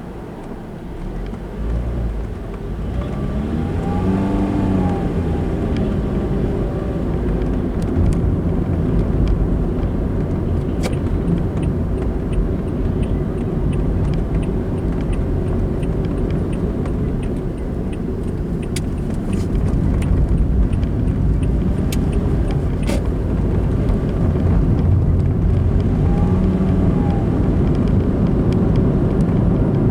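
A car driving, with steady engine and tyre noise heard from inside the cabin by a dashcam. The noise grows louder over the first few seconds as the car picks up speed, then holds. Faint regular ticking sounds in the middle stretch.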